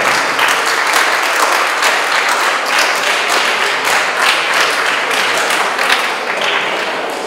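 A small group of people applauding, dense clapping that eases off a little near the end.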